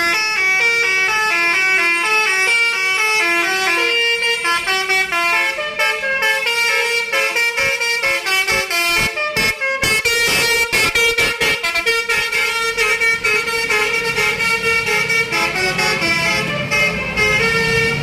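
Bus's Basuri multi-tone musical air horn (telolet) playing a melody of held notes that step up and down. From about six to twelve seconds in, it breaks into a rapid stuttering run of short blasts, then goes back to the tune.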